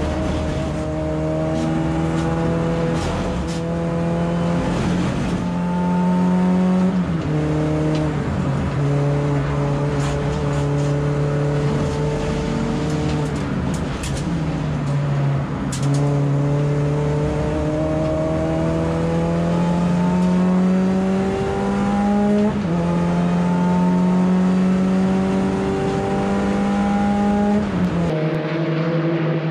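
Mini Cooper R53 race car's engine under load, its pitch climbing slowly and dropping sharply at each gear change, about four times.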